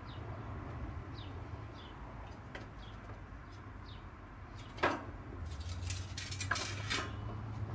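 Metal clank about five seconds in, then a run of clicks and rattles as a Swardman Edwin 2.0 reel mower is tipped down onto its rollers on concrete and its handle lowered. Small birds chirp behind it in short falling notes.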